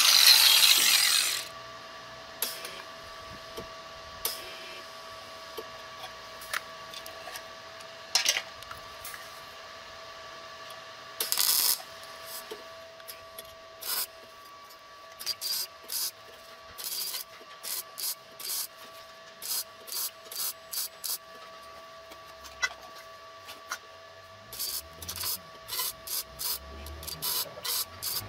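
A power tool winds down with a falling whine in the first second or so. Then short scraping strokes on metal follow over a faint steady hum, sparse at first and coming about one to two a second in the second half.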